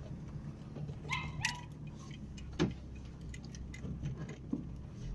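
Dogs giving excited barks and yelps, greeting their owner's arrival, over the steady low hum of a car engine idling. The loudest yelps come about a second in.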